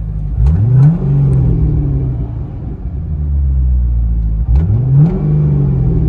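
Car engine idling through an aftermarket exhaust with a deep rumble, blipped twice: a quick rev about half a second in and another about four and a half seconds in, each climbing sharply and dropping back to idle, with a short crackle as each rev peaks.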